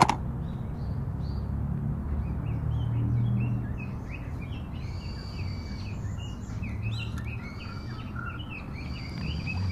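Many small birds chirping and calling, with quick short chirps and a few longer high whistled phrases, over a steady low rumble.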